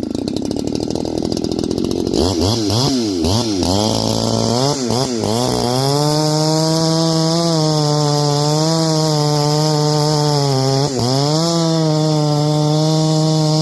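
Ported Neotech 865 chainsaw with a 50 mm top end and a mild port, running at full throttle. Its two-stroke engine is blipped up and down several times in the first few seconds, then holds a steady high-revving note with one brief dip about eleven seconds in.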